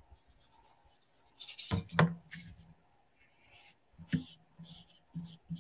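Paintbrush rubbing on an ink pad and scrubbing across paper: soft, scratchy strokes in short scattered bursts, with a few light handling knocks.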